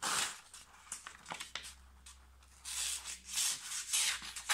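A sheet of paper dragged against the Estwing axe's edge, rasping and tearing in several strokes rather than slicing cleanly. The tearing is the sign of a dull, roughly ground edge.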